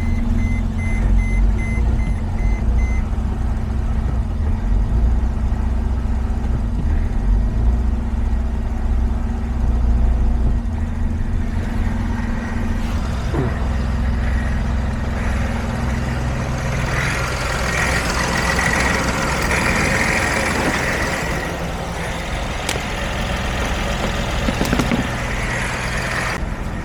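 Mercedes Sprinter's 3.0 L OM642 V6 diesel engine running steadily, with an electronic beeping in the first few seconds.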